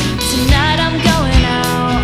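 A live band playing a song: drum beat, bass, and acoustic and electric guitars, with a gliding melody line above them.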